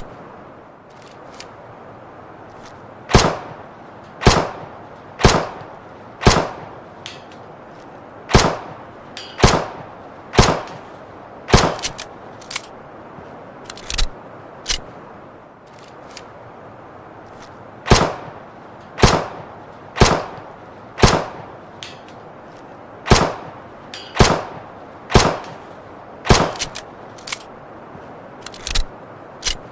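Luger pistol firing single shots about a second apart, in runs of four or five with short pauses between runs, with a few fainter clicks in the pauses, over a steady hiss.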